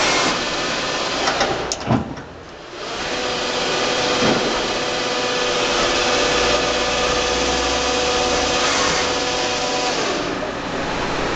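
Tree CNC lathe running, a steady machine whine with noise. About two seconds in there are a couple of sharp clicks and a brief dip in level before it runs on.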